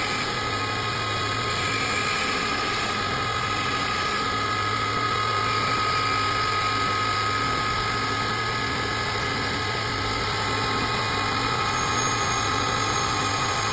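Small CNC woodworking lathe running at a steady pace: an even motor hum with a steady high whine.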